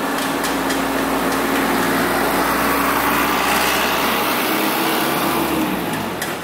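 Light truck driving past close by, its engine running steadily and then falling away near the end.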